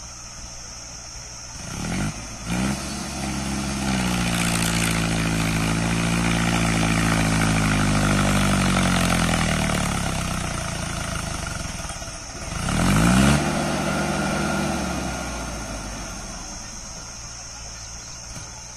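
Mahindra Arjun 555 DI tractor's four-cylinder diesel engine labouring under load as it pulls a loaded trolley up a dirt slope in low third gear. It revs up about two seconds in, sags slowly in pitch as it lugs, revs up sharply again about two thirds of the way through (the loudest moment), then falls away and fades as the tractor loses power on the climb.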